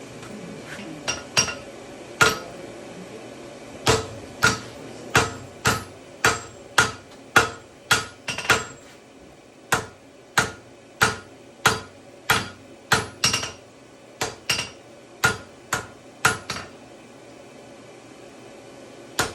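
Hand-forging a tomahawk: about two dozen hammer blows on hot steel at the anvil, each with a short metallic ring, in an uneven beat of one to two a second. The blows stop about three-quarters of the way through.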